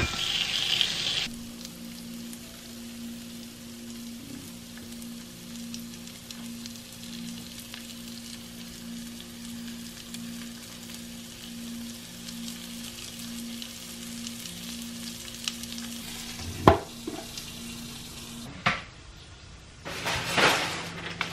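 Cauliflower, potato slices and mushrooms sizzling on the hot plate of an indoor searing grill: loud for the first second as they go on, then a quieter steady sizzle with a faint low hum. A sharp knock comes about 17 seconds in and a smaller click soon after, and cardboard rustles near the end as a box is handled.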